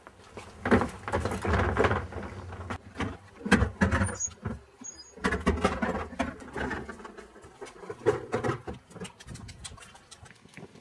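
Plastic wheelie bin being wheeled on its two wheels over paving and pavement: an uneven rolling rumble with clicks and knocks, in several stretches with a short lull about halfway through.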